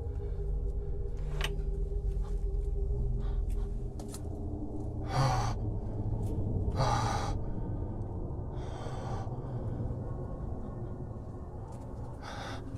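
A person breathing out sharply about four times, short breathy exhales a second or two apart over a low steady hum, with a few faint clicks.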